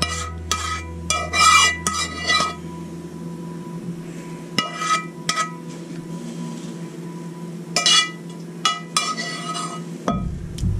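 A spoon clinking and scraping against a mixing bowl as squash casserole mixture is spooned out, in several clusters of sharp, ringing knocks. A low hum fades away about four seconds in.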